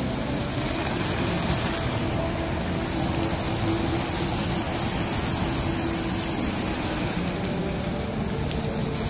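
Indoor fountain's water jets falling back into the basin, a steady rush of splashing water.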